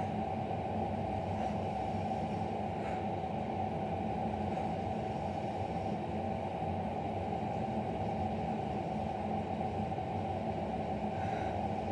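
Steady low hum with a faint rumble: continuous background noise in the room.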